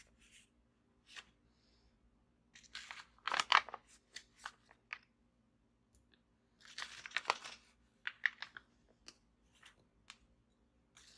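Plastic packaging crinkling and crackling as it is handled, in two bursts about three and seven seconds in, with scattered small clicks between, over the faint steady hum of a ceiling fan.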